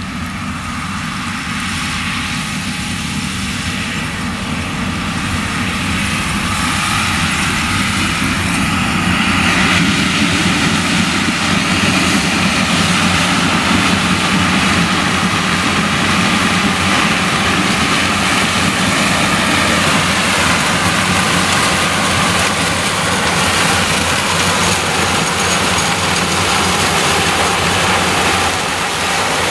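Claas Lexion 760 TT combine harvester working under load, harvesting maize with a nine-row Geringhoff corn header. Its engine and threshing machinery make a dense, steady noise that grows louder over the first ten seconds or so, then holds steady as the machine passes close by.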